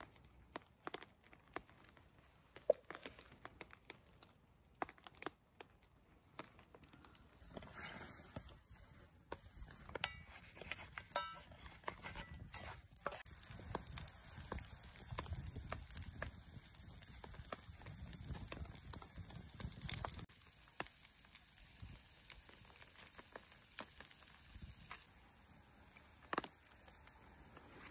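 Pancake batter frying in oil in a cast-iron skillet over a wood-fired kindling stove: a faint sizzle with scattered crackles and pops from the burning kindling. The sizzle turns louder and hissier about eight seconds in, then drops back about twenty seconds in.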